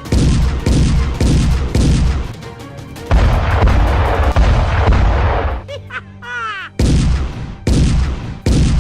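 Loud background music with a heavy, booming bass beat; in the middle a couple of seconds of noisy rush, then a few quick whistling pitch glides about six seconds in.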